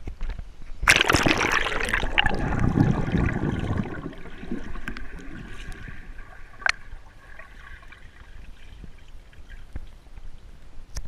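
Water splashing and churning around a camera's underwater housing as it plunges below a lake's surface, loud for about three seconds. Then a muffled underwater hush with a faint steady tone and a single click.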